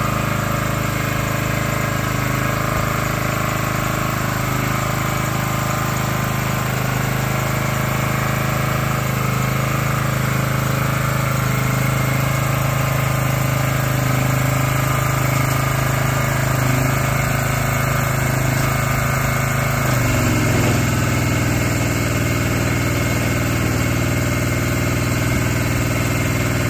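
Small engine of a Sungdo tracked aerial work platform (the engine newly replaced) running steadily while the boom is raised. Its note steps down slightly about twenty seconds in, then holds steady.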